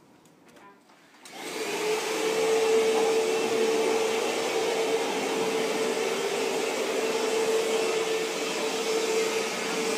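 Vacuum cleaner switched on about a second in, its motor then running steadily with one held tone.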